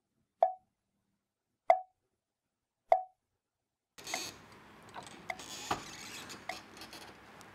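A wooden fish (mõ) knocked at a steady beat, about one stroke every second and a quarter, keeping time for Buddhist sutra chanting. After about four seconds the knocks grow fainter under a room's background noise.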